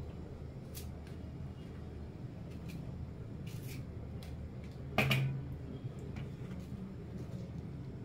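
Small knife working dry onion skins: faint scrapes and crackles as the papery outer layers are cut and peeled off, over a low steady hum. One sharp knock with a short ring about five seconds in is the loudest sound.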